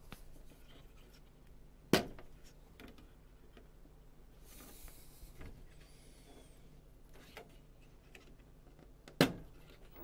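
A plug-in serializer module being handled on a circuit card, pulled from and pressed onto its pin sockets: light rubbing and small ticks, with two sharp clicks, one about two seconds in and one near the end.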